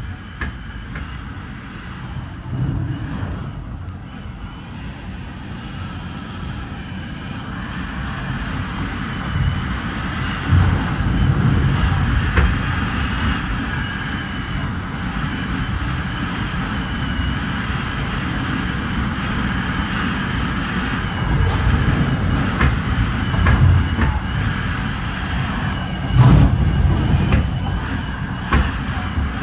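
Rumble and rail noise of a Metra commuter train running at speed, heard from its front end while it passes a double-stack intermodal freight train on the next track. The noise grows louder about ten seconds in, with scattered clicks of wheels over the rails.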